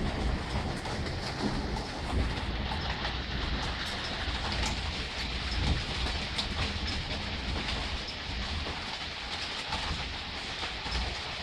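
Soft rain falling steadily, with scattered sharper drip clicks and a low rumble underneath.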